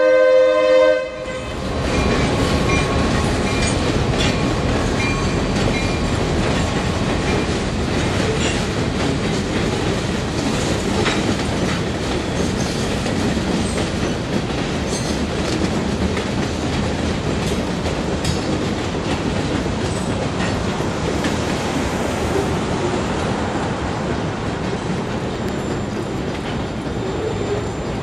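A BNSF freight train's locomotive air horn sounds through about the first second, then a line of covered hopper cars rolls past steadily, wheels clicking over the rail joints, with faint wheel squeal near the start.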